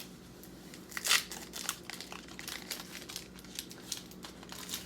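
Foil wrapper of a trading-card bonus pack crinkling as it is torn open, a run of irregular crackles with the loudest about a second in.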